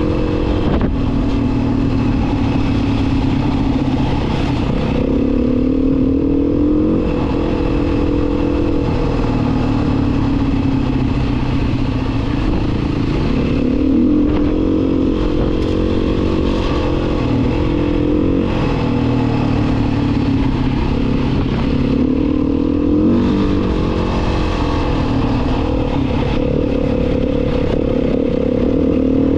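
A small vehicle engine running steadily under way, its pitch rising and easing back several times as the throttle changes.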